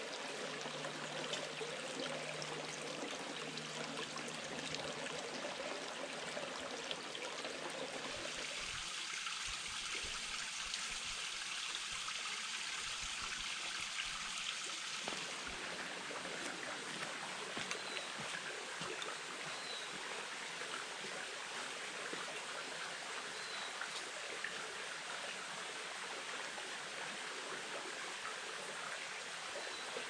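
Shallow creek water trickling and running over rock shelves, a steady flowing sound.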